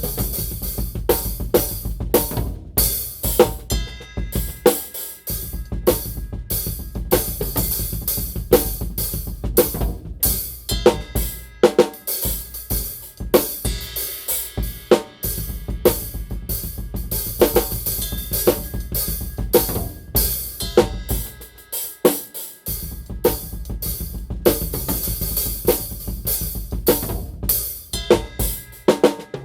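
A drum kit played in a small untreated storage room: a continuous groove of kick, snare, hi-hat and cymbal strikes. The low end drops out briefly three times, about 5, 15 and 22 seconds in.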